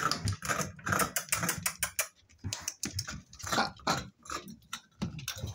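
Spaniel puppies scrambling on a wooden floor and knocking a white wire plant stand: a fast, irregular run of clicks and clatters, with puppy whining in the first couple of seconds.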